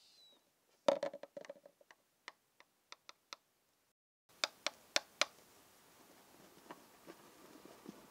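A series of short, sharp clicks and taps: a quick irregular cluster about a second in, then four sharper clicks spaced about a fifth of a second apart a little after the middle, followed by faint hiss.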